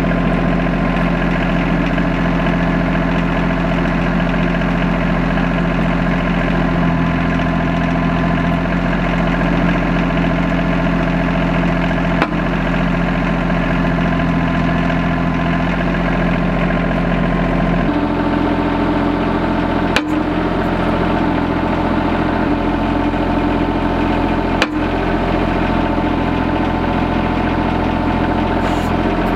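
Subcompact tractor's diesel engine running steadily while the backhoe works, its note changing about two-thirds of the way through. Three brief clicks are spread across it.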